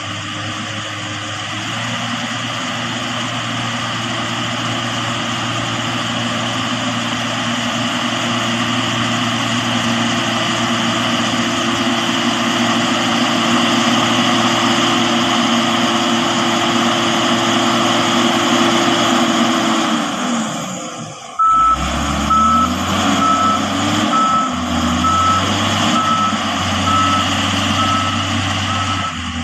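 Motor grader's diesel engine running hard, its pitch falling away about two-thirds of the way through. The grader's reversing alarm then beeps steadily over a deeper engine rumble.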